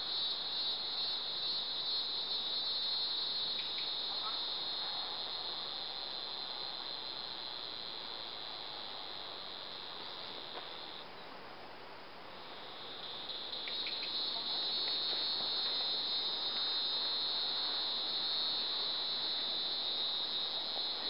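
Steady, high-pitched chorus of insects, crickets or cicadas, that dies away a little past the middle and starts up again about a second later.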